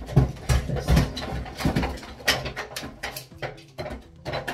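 Hard objects knocking and clattering while someone rummages for a hair dryer: several dull thuds in the first couple of seconds, then lighter, sharper clicks.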